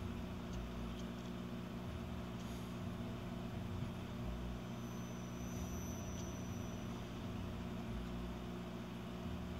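A steady low mechanical hum, with a faint high whistle between about four and seven seconds in.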